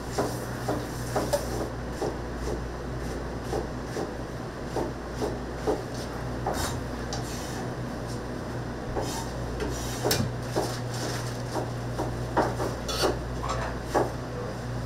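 Irregular clinks, knocks and scrapes of kitchen utensils against pots and dishes over a steady low hum.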